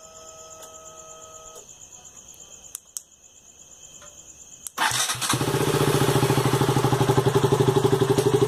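An electronic beep lasts about two seconds at the start, followed by a couple of clicks. Then, past halfway, the KTM Duke 200's single-cylinder engine is started on the electric starter, catches within about half a second and settles into a steady, evenly pulsing idle.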